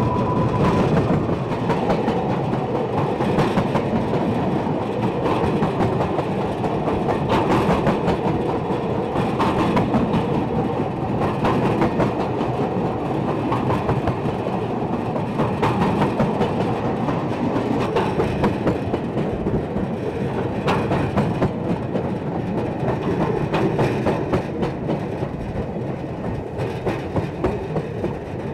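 Unpowered narrow-gauge slate wagons freewheeling downhill under gravity, with no engine: steel wheels running steadily on the rails, with frequent clicks over the rail joints.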